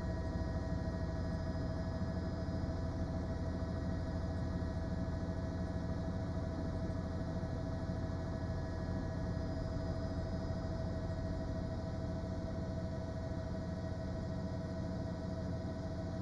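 Steady hum: several held tones over a low drone, unchanging throughout.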